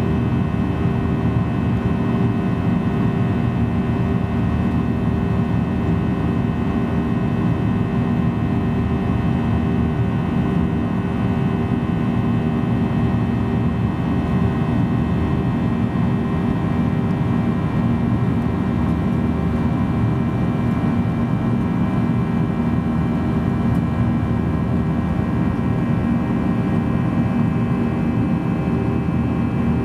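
Steady cabin noise inside a Boeing 737-800 climbing after takeoff: the rumble of its CFM56-7B turbofan engines with several steady humming tones, unchanging throughout.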